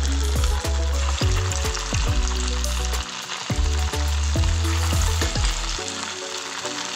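Fritter batter deep-frying in hot oil in a kadai, sizzling steadily as a spatula stirs it. Background music with a deep bass line plays over it, and the bass drops out about six seconds in.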